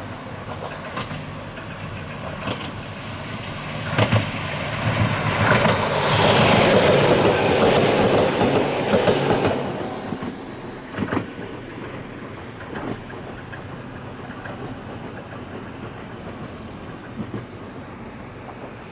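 Ohmi Railway electric train (set 807F) approaching and passing close by, its wheels clacking over rail joints. It is loudest about six to ten seconds in, then fades away as it recedes.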